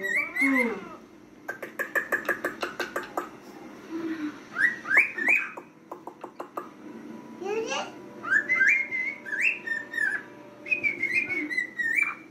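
Male cockatiel whistling in short phrases of stepped and rising notes, with a quick run of clicks about one and a half seconds in.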